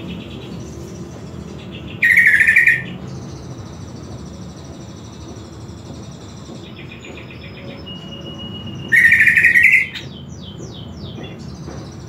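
Green leafbird (cucak ijo) singing in its cage. It gives two loud, rapid rattling phrases, about 2 seconds in and again about 9 seconds in. Between and after them come softer chirps, a held whistle and a few quick sliding notes.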